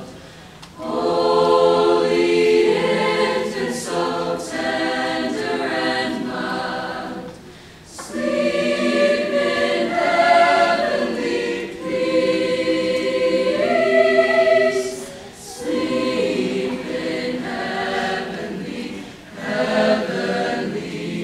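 A choir singing held, multi-voiced phrases, with brief breaths between phrases.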